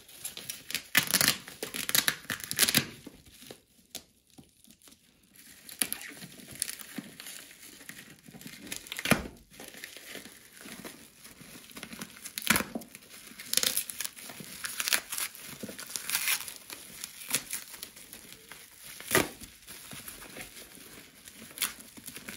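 Bubble wrap and plastic packing tape being peeled and torn off a parcel by hand: irregular crinkling and crackling with sharp rips of tearing plastic, and a short lull about four seconds in.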